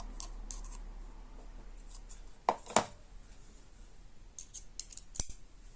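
Small metallic clicks and taps of a Torx bit driver being fitted into the tiny screws of a folding knife, with two sharper clicks about halfway through and a quick run of lighter ticks near the end.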